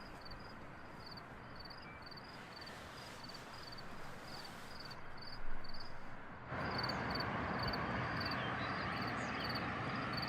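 Crickets chirping steadily, about two short high chirps a second. About six and a half seconds in, a steady rushing noise comes in under them.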